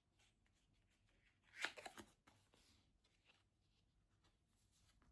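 Near silence: room tone, with one brief rustle about a second and a half in.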